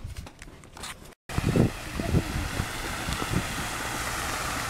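Quiet rustle of a camera being handled, then, after a short break, the steady splashing hiss of an outdoor water fountain, with scattered low thumps.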